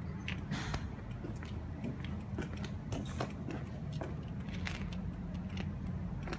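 Kawasaki Zephyr 1100's air-cooled inline-four engine idling steadily, with irregular light clicks over the low hum.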